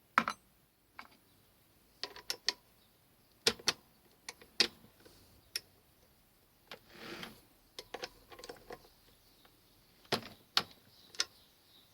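Scattered faint metallic clicks and a short scrape about seven seconds in, as a chuck key's teeth are worked against the gear of an old Jacobs drill chuck.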